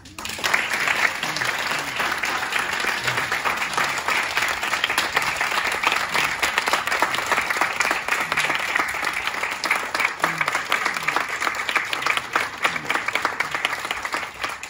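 A roomful of people applauding, many hands clapping together. It starts suddenly and keeps up steadily.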